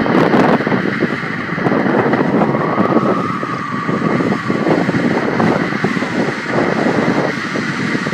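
Strong wind rushing steadily, with a brief higher whistling howl about three seconds in.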